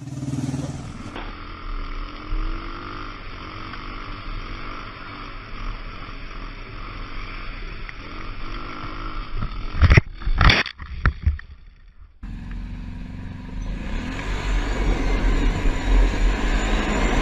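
Quad bike engine running with its pitch rising and falling, then a crash about ten seconds in: several loud knocks and clatter. After a brief drop in level, another engine runs louder.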